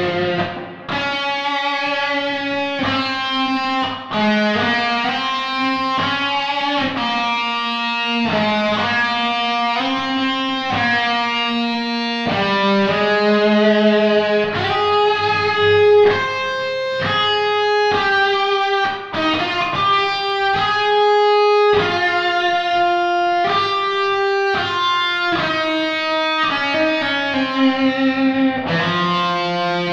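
Song music: an electric guitar plays a melody of held notes, some with a slight vibrato, over programmed bass and drums.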